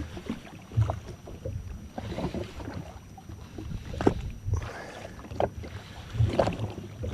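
Small waves slapping against the hull of a drifting jet ski, in uneven low thuds, with a few sharp clicks and knocks about four and five and a half seconds in.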